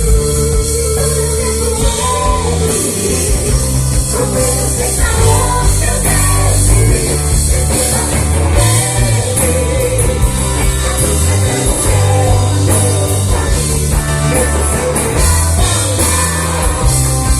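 Live worship band playing a Christian song with drum kit, bass and guitar, with singing over it at times.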